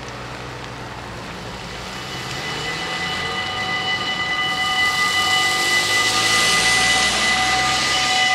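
Dutch level-crossing warning bells start up about two and a half seconds in and ring steadily, the signal that the crossing has switched on for an approaching train and its barriers are about to lower. Under them a rushing hiss grows louder.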